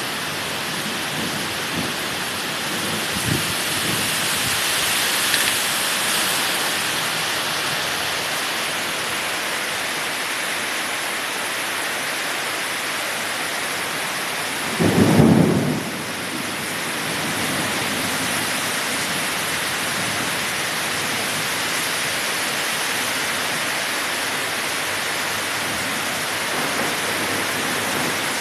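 Heavy rain pouring steadily in a thunderstorm, swelling briefly around four to six seconds in. About halfway through comes a brief, loud clap of thunder lasting about a second, the loudest sound in the stretch.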